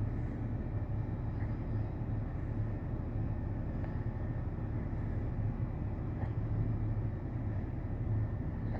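Distant diesel freight locomotives approaching, heard as a steady low rumble.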